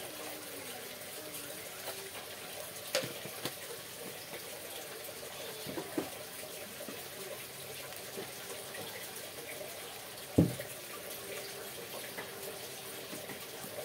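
Steady hiss of bitter gourd slices and egg frying in a wok over a gas flame, with a few small clicks and one louder knock about ten seconds in as a glass seasoning jar is set down on the table.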